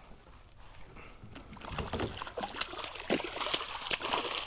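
Hooked redfish thrashing and splashing at the surface beside a kayak: quiet at first, then from about two seconds in a growing run of sharp splashes and churning water.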